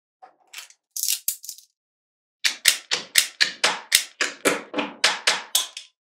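Small magnetic balls clicking as they are pressed and snapped into place by hand: a few scattered clicks, then a quick run of sharp clicks, about four or five a second, through the second half.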